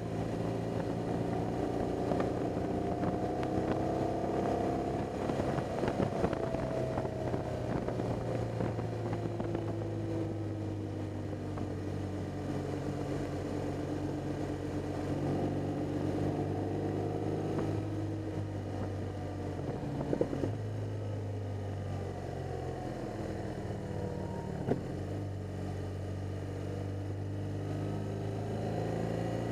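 BMW R 1200 GS's flat-twin boxer engine running under way, its pitch slowly rising and falling with the throttle through the bends. Two brief knocks sound in the second half.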